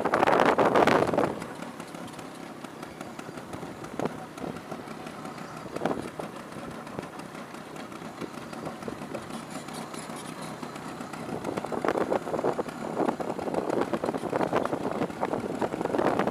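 Bajaj Classic two-stroke scooter running while ridden in second gear. There is a loud rushing noise in the first second, then a quieter steady stretch, and the noise builds up again over the last few seconds.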